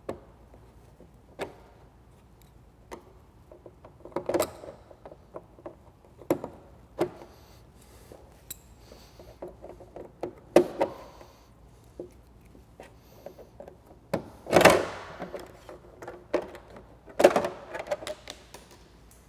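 Plastic push-dart fasteners being pried out of a snowmobile windshield and the windshield being lifted off: scattered small clicks and knocks of plastic parts, with a few louder clatters spread through it.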